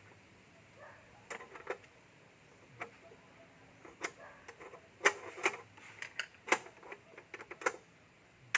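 Irregular sharp clicks and light knocks of small hard parts being handled, a few at first and coming thicker from about five seconds in.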